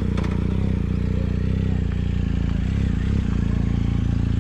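An engine that started up just before, now running at a steady loud idle with a deep, even rumble.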